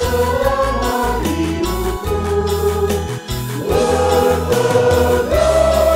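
Mixed church choir singing a hymn in parts, with a steady low bass underneath; the voices hold long chords and move up to a higher held chord near the end.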